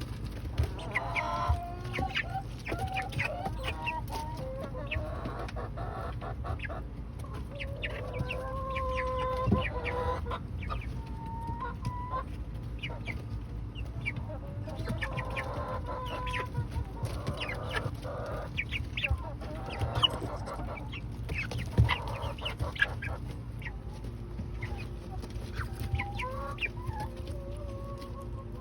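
Young chickens clucking and peeping in short, varied calls, a few of them held briefly, mixed with frequent quick taps of beaks pecking at food.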